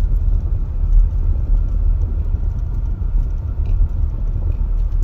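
Car cabin interior while driving slowly on a dirt road: a steady low rumble of the engine and tyres, with a few faint ticks.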